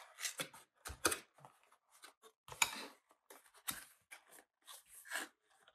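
Small cardboard box and packaging handled by hand: an irregular run of short scrapes, rustles and taps, with a couple of sharper knocks.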